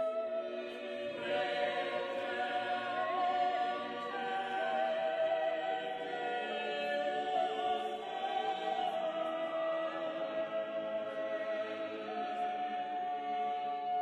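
Background music: choir-like voices holding long notes that change slowly in pitch.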